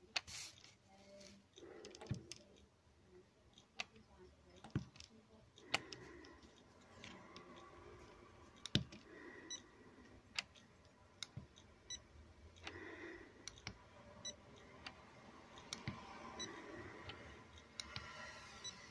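Faint, scattered clicks and taps of a coating thickness gauge's probe being set down again and again on a plastic foil thickness standard, with a few faint short high beeps.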